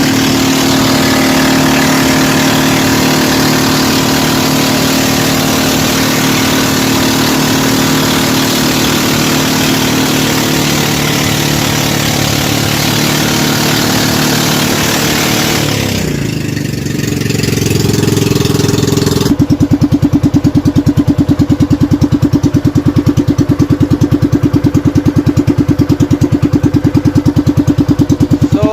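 An engine running steadily. Its pitch drops around sixteen seconds in, then from about nineteen seconds a louder, rapidly pulsing engine sound takes over.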